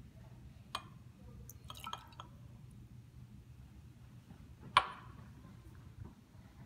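Glass laboratory beakers being handled as a slurry is poured from one into another, with small glass clinks and a light trickle of liquid. A sharp knock just under five seconds in, the loudest sound, is a glass beaker being set down on the benchtop. A low steady hum runs underneath.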